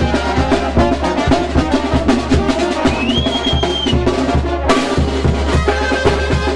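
Brass band playing a lively tune over a fast, steady drum beat.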